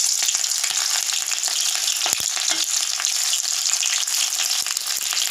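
Sliced onions sizzling steadily in hot oil in a kadhai, frying for a kadhi's tempering, while a steel spoon stirs them with small scraping clicks against the pan. There is one short knock about two seconds in.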